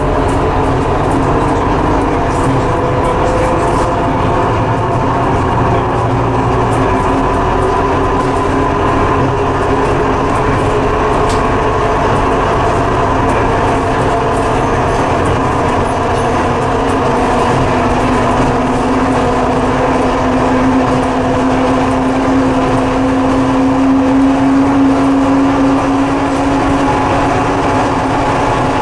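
Scania bus heard from inside at the front while it cruises along a concrete guided busway: a steady rumble from the tyres and the running gear, with a drivetrain whine that rises slowly in pitch.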